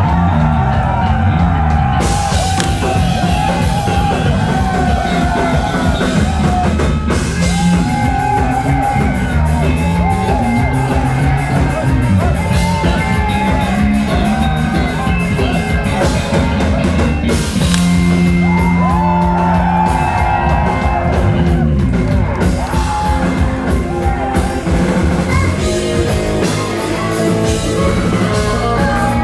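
J-pop/rock band music: a woman singing a melody over drums, bass guitar, electric guitar and keyboard.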